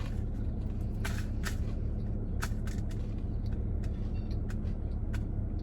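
Chewing on a crunchy Korean corn dog: scattered crisp crunches over a steady low hum.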